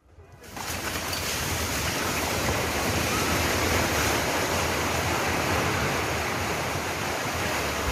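Multi-storey apartment block collapsing in an earthquake: a steady rushing rumble of falling concrete and rubble that swells up over about half a second and carries on without separate crashes.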